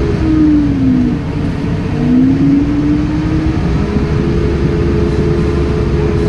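Tractor engine running, heard from the driver's seat over a steady low rumble. Its note drops from about half a second to one second in, then climbs back up between two and three and a half seconds, as the revs fall and rise again.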